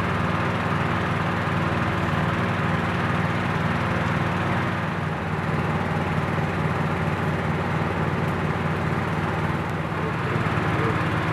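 An engine running at a constant speed, a steady mechanical drone that does not rise or fall.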